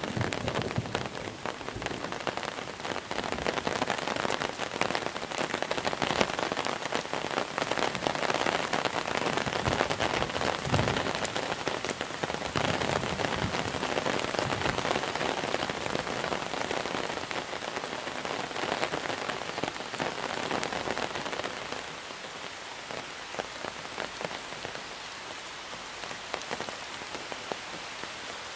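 Monsoon rain falling steadily, a dense stream of drops hitting the surface, easing a little about three-quarters of the way through.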